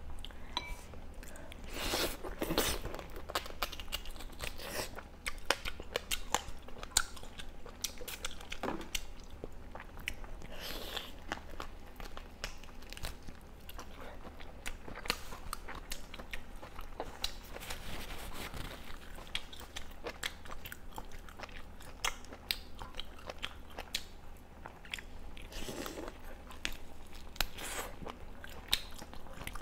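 A person chewing and biting into boiled duck leg close to the microphone: a steady run of irregular mouth clicks and smacks.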